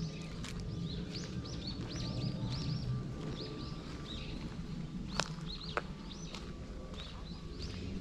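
Small birds chirping over and over, short rising-then-falling chirps several a second, over a steady low rumble. Two sharp clicks come a little past five seconds in.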